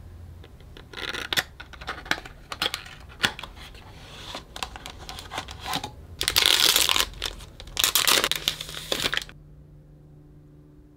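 Cardboard box being opened and a disposable camera's clear plastic wrapper crinkling and tearing as it is pulled off, with two loud bursts of crinkling in the second half. The handling stops about nine seconds in.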